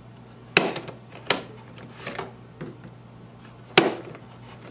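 Sharp plastic clicks and knocks as Brother LC401 ink cartridges are pressed down, unlatched and pulled out of the printer's cartridge bay. Three loud clicks, the first about half a second in and the last near the end, with a few fainter ones between.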